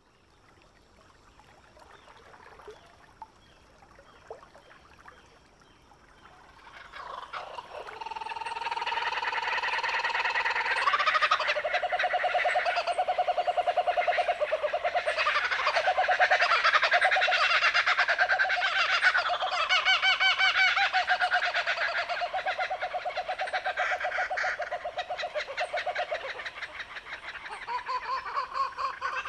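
Chorus of animal calls: dense, rapidly pulsing trills held at steady pitches. It is faint at first and swells to full strength about seven seconds in.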